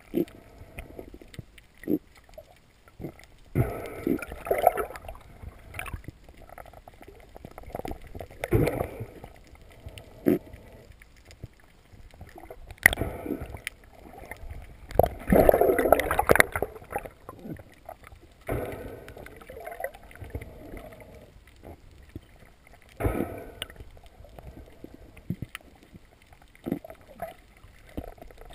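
Water sloshing and gurgling around an underwater camera, in irregular rushing bursts every few seconds, the longest and loudest about halfway through.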